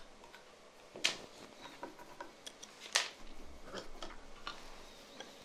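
Small clicks and light scraping of a T-handle screwdriver undoing screws on a plastic LED projector-lens housing, with two sharper clicks about one and three seconds in.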